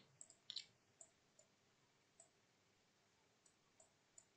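Near silence with faint scattered clicks, about eight in four seconds, the strongest about half a second in: a computer mouse clicking.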